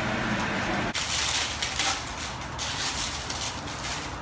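Busy hawker-stall din, then about a second in a sudden switch to loud crinkling and rustling of clear plastic packing wrap as a lucky-cat figurine is unwrapped, easing off after about two seconds.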